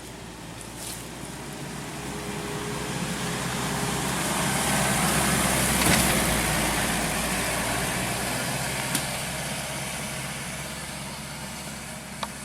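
An SUV driving past off-road. Its engine and tyre noise build to a peak about six seconds in, then fade as it moves away.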